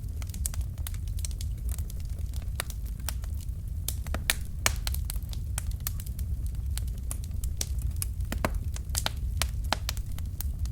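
Wood fire burning in a fireplace: logs crackling with many irregular sharp pops and snaps over a steady low rumble of the flames.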